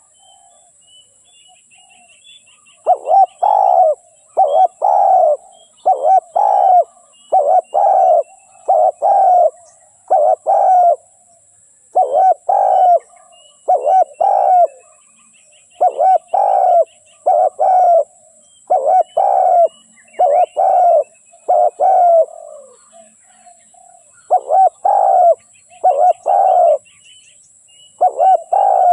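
Spotted dove cooing over and over in short phrases of two or three notes, beginning about three seconds in. Small birds chirp faintly behind it.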